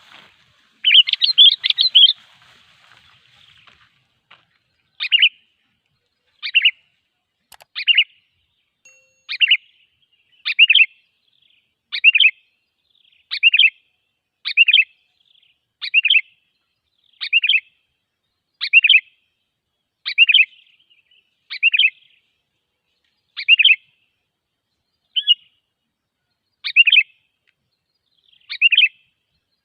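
Sooty-headed bulbul (kutilang) calling, a lure call meant to draw bulbuls in. A quick cluster of notes comes about a second in, then short calls repeat evenly about every one and a half seconds.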